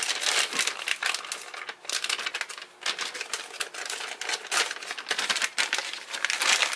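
Plastic vacuum-sealer bag crinkling in uneven crackles as it is handled in the hands, a steak inside it.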